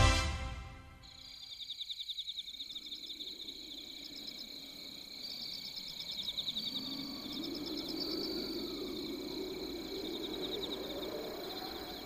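Ambient night insects, cricket-like, chirping in fast, evenly pulsed trills. A faint low rushing sound swells and fades behind them in the middle.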